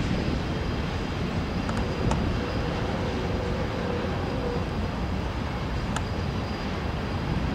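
Freight train passing slowly: BNSF diesel locomotives' engines running, with a steady rumble of wheels on the rails and a few faint clicks.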